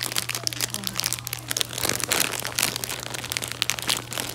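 Holographic foil gift wrap crinkling and rustling in quick irregular crackles as it is handled, over a steady low hum.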